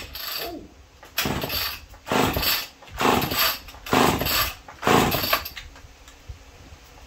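Lombard two-stroke chainsaw being pull-started on choke: about five hard pulls on the starter rope, roughly one a second, the engine turning over without yet running. Its ignition coil wire has just been reconnected to the ignition module.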